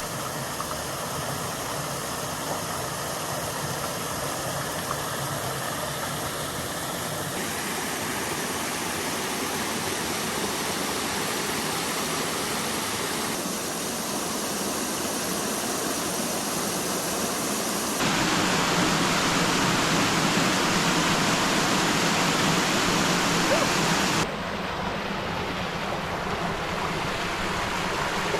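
Steady rush of water from a canyon stream and small waterfalls. The level and tone change abruptly several times, and it is loudest about two thirds of the way through.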